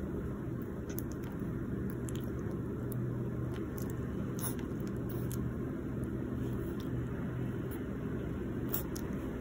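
Steady low background rumble with a faint, even hum and a few faint ticks.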